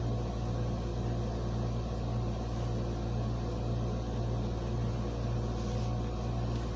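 Window air conditioner running: a steady low hum with fan noise.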